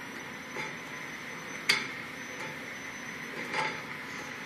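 A few light clicks and knocks over a faint steady hum. One sharp click comes a little under two seconds in, and softer knocks come before and after it.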